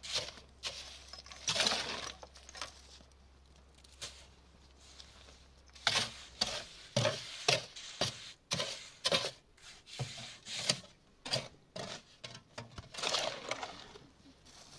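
Irregular knocks, clinks and scrapes of hand tools at work, with a run of quick strikes from about six seconds in that eases off near the end.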